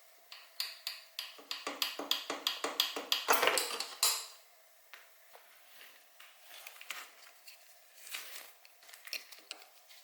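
A quick run of sharp metallic clicks and clinks, about four a second, for roughly three and a half seconds, then scattered quieter clicks: hand tools and metal parts being handled during a motorcycle teardown.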